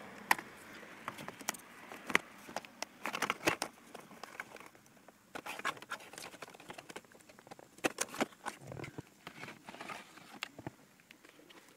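Hands handling a car's plastic gauge cluster and its wiring connectors: irregular clicks, taps and rattles of plastic, with some short rustling.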